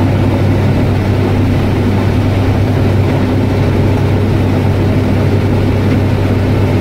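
Combine harvester running steadily while harvesting corn: engine and threshing machinery giving a loud, even drone with a strong low hum, heard from inside the cab.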